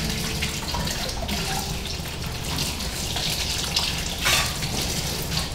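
Kitchen tap running into a sink while dishes are washed by hand, with a brief clink about four seconds in.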